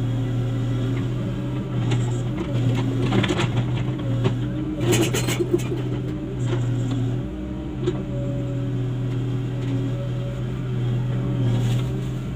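Komatsu PC75US-3 excavator's diesel engine running steadily, with a cluster of short clattering sounds from about three to five seconds in.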